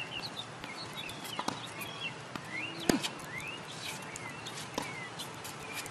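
Tennis rally: a few sharp racket-on-ball hits a second or two apart, the loudest about three seconds in. Birds chirp throughout.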